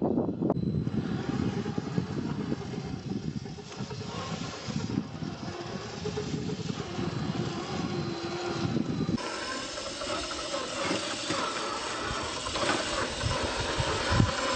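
RC scale Willys jeep driving off-road, its motor whining steadily over the noise of the wheels on the ground. The sound changes abruptly about nine seconds in, as at a cut to another clip.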